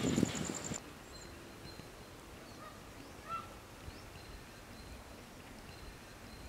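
Rice being scooped from a pot over a crackling wood fire, which stops abruptly under a second in. Then comes a low background hiss with a few faint, short scattered chirps.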